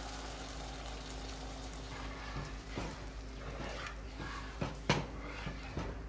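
Blended tomato gravy mixture sizzling in hot butter and oil in a pot, with a steel ladle scraping and knocking against the pot several times, loudest about five seconds in.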